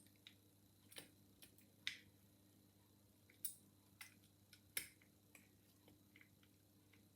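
Faint, irregular metallic clicks and ticks as a piano-wire pick and tension tool work the levers inside a Chubb Blue Flash 5-lever mortice sash lock. About a dozen scattered clicks come as the levers are lifted and dropped during picking.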